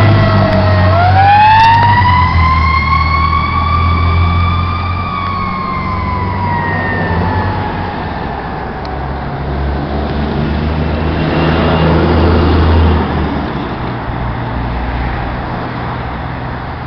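Fire truck siren on a 2003 Pierce Dash ladder truck: it dips, winds up in pitch over about four seconds, then slowly falls and fades away as the truck drives off. A low vehicle engine rumble runs underneath.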